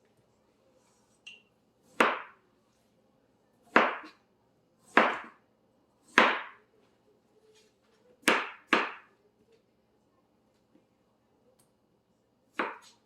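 Knife chopping through a Canary melon into pieces: seven sharp chops at uneven gaps of one to two seconds, two of them in quick succession in the middle.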